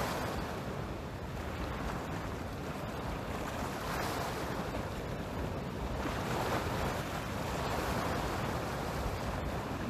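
Sea surf washing against a rocky shore, rising and falling in swells, with wind rumbling on the microphone.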